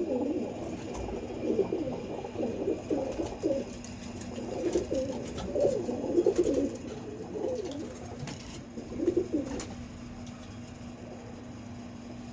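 Birmingham roller cock pigeons cooing in a string of repeated low calls, which die away about nine and a half seconds in.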